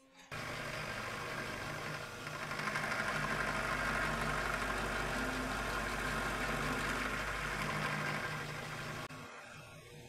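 Milling machine running, its spiral end mill cutting into an aluminum round bar held in a vise, with a steady motor hum under the cutting noise. The cut grows louder about two seconds in and drops away about a second before the end.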